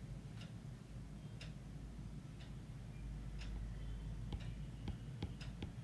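Clock ticking faintly, about once a second, over a low room hum, with a few extra small clicks near the end.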